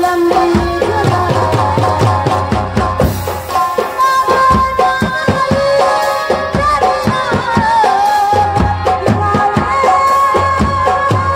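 Live Indian folk stage music through a PA: hand drums in the tabla family play a fast, dense rhythm under a held melody line that bends in places.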